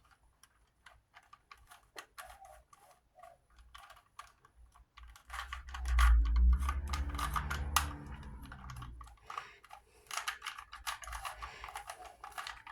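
Rapid plastic clicking of a Rubik's Cube's layers being twisted, with a low hum swelling for about three seconds around the middle.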